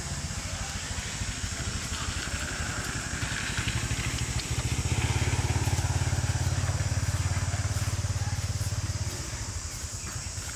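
A motorcycle engine running with a low, rapid pulsing rumble. It grows louder about four seconds in and drops back about nine seconds in.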